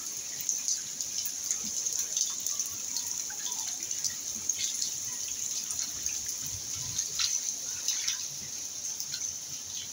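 Rain falling, with water dripping and splashing in many short, irregular drops over a steady hiss.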